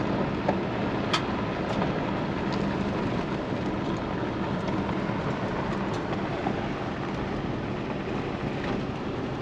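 Car driving, a steady rumble of road and engine noise, with a sharp tick about a second in and a few fainter ones later.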